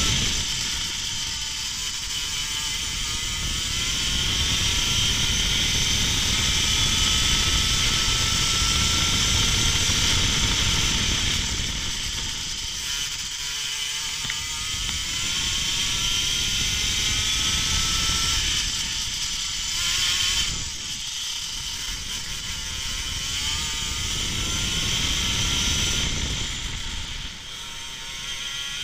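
Go-kart engine at racing speed, its pitch climbing under acceleration and dropping back into the corners several times, over a heavy low rumble of wind on the onboard microphone.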